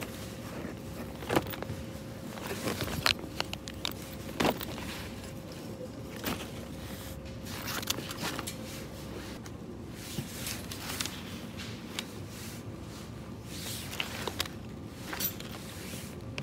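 Supermarket ambience: a steady background hum with scattered sharp clicks and knocks, the loudest about one and a half, three and four and a half seconds in. A faint steady tone underneath stops about nine seconds in.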